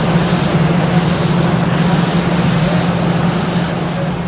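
Antonov An-124-100 cargo jet's turbofan engines running, a loud rushing noise over a steady low hum that eases off slightly near the end.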